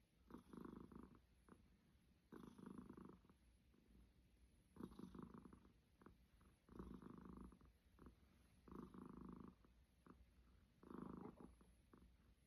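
A sleeping cat snoring softly, one raspy breath-snore about every two seconds, six in all.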